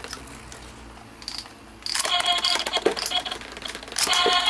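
Quick plastic clicks and knocks from a light-up Olaf spinning top and its handheld launcher, starting about two seconds in. About four seconds in, a toy electronic tune starts up again.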